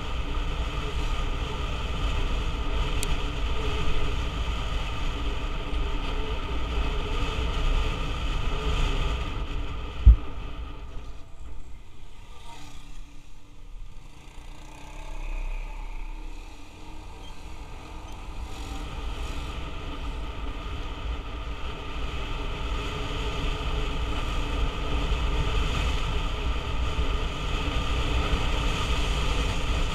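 Motorcycle engine running at road speed, heard with low wind and road rumble on a helmet-mounted microphone. There is a single sharp thump about a third of the way in, after which the engine eases off and goes quieter for several seconds before picking up again.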